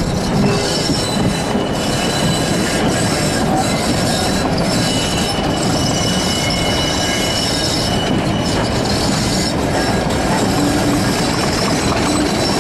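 BR Class 50 diesel locomotive 50035 'Ark Royal' running with its English Electric 16-cylinder engine working as it draws coaches slowly round a curve. Steady high-pitched wheel squeal from the curved track runs over the engine and wheel noise.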